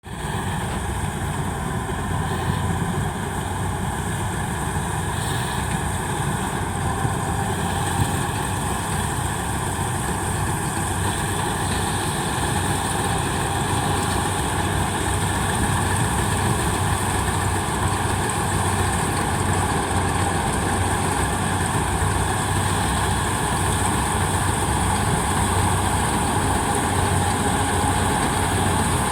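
Kubota combine harvester running steadily: a dense engine drone with constant high-pitched whines from its machinery, gradually getting louder.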